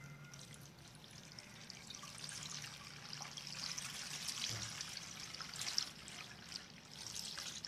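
Cold water pouring over hot boiled macaroni in a stainless steel colander, a soft trickle that swells through the middle and eases off near the end. The pasta is being rinsed to cool it after draining.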